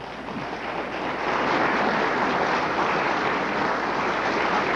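Audience applauding, swelling over the first second and a half into steady, sustained clapping.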